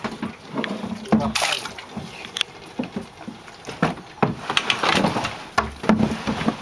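Water splashing and sloshing around a small wooden boat in irregular bursts.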